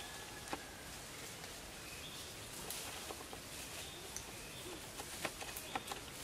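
Outdoor forest ambience: a steady hiss with a few faint, short high chirps and scattered sharp clicks or snaps, which come more often in the last couple of seconds.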